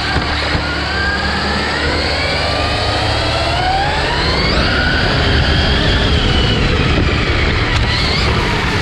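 Battery-powered Losi RZR Pro R RC side-by-side's electric motor and gears whining as it is driven hard. The whine climbs steeply in pitch as it speeds up over the first half, holds, then eases off, with another short climb near the end.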